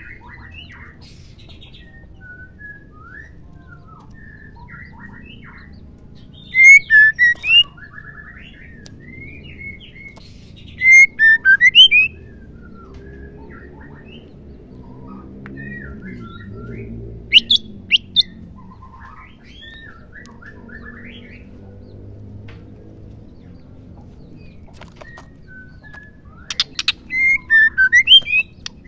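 Female white-rumped shama calling: loud bursts of quick, rising and falling notes about 6, 11 and 27 seconds in, a few sharp clicks around 17 seconds, and softer chirps and whistles in between.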